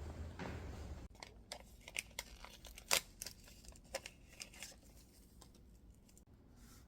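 Scattered crinkles, rips and clicks of something like paper or plastic wrapping being handled, the sharpest snap about three seconds in.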